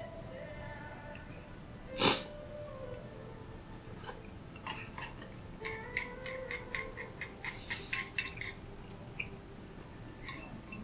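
Wooden chopsticks clicking and scraping against a ceramic rice bowl as rice and beef are shovelled from the bowl held at the mouth. There is one louder knock about two seconds in, then a quick run of clicks, about four a second, from about four to eight and a half seconds in.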